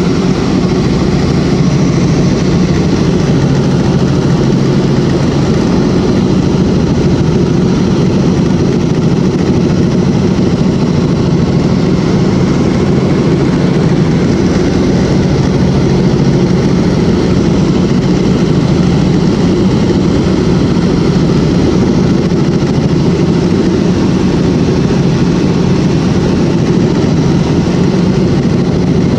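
Helicopter engine and rotor noise heard from inside the cabin: a loud, steady drone in flight.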